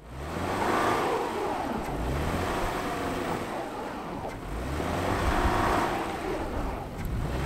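Subaru Forester's 2.5-litre naturally aspirated petrol flat-four revving as the car works through deep snow, the revs rising and falling a couple of times over a steady hiss.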